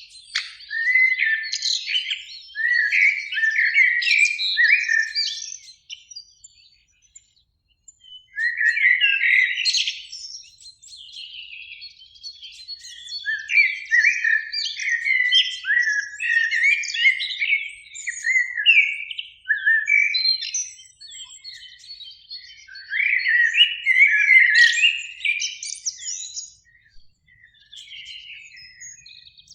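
Eurasian blackbirds singing: a run of warbled phrases, each followed by short high twittering, with brief pauses between phrases and a longer break about six seconds in.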